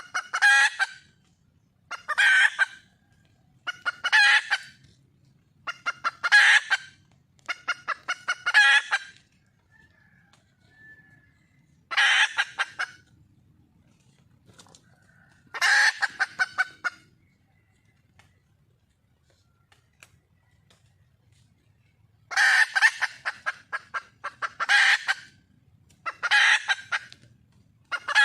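Red junglefowl hen calling to attract a male: bouts of rapid clucking notes, each bout about a second long, mostly about two seconds apart, with a longer pause of several seconds about two-thirds of the way through.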